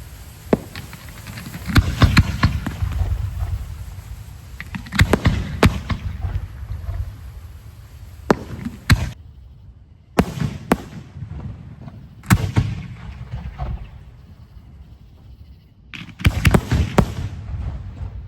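Professional display fireworks going off: a series of sharp bangs, some single and some in quick clusters, each followed by a rumbling echo.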